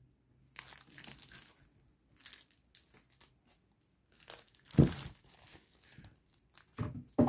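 Clear plastic sleeves on manga volumes crinkling and rustling as the books are handled, in faint, scattered rustles, with one brief louder sound about five seconds in.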